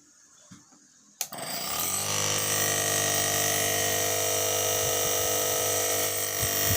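A small motor switched on with a click just over a second in, spinning up within about a second and then running steadily with a loud buzz that sounds like a motorcycle engine.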